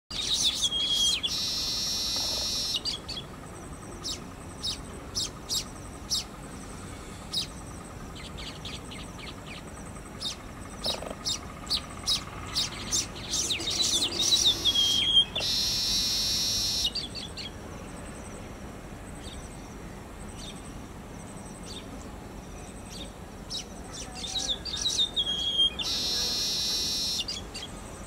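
Male baya weaver singing: runs of dry ticking notes that speed up, each ending in a long, wheezy, hissing buzz, three times.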